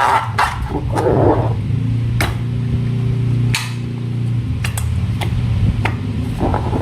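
Rubber balloons and slime being handled: sharp snapping clicks, and a steady low buzzing tone that lasts a few seconds.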